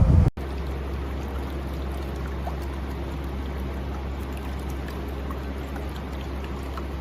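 Water running steadily in an evaporative air cooler, over a constant low hum. It starts abruptly just after a brief loud rumble.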